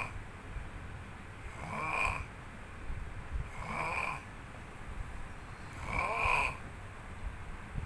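Snoring in a steady rhythm, one snore about every two seconds, each lasting about half a second and rising in pitch.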